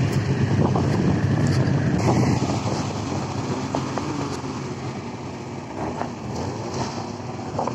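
Ski-Doo snowmobile engines running and revving as the machines pull away over snow, louder in the first couple of seconds, then settling lower.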